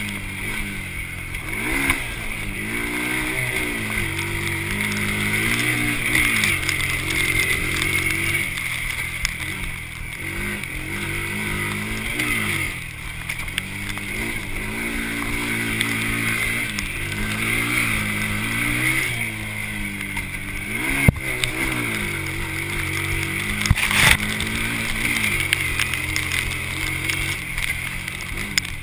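Honda TRX90 quad's small four-stroke engine being ridden hard, its pitch rising and falling over and over as the throttle is opened and closed. Two sharp knocks come about three seconds apart, around two-thirds of the way in.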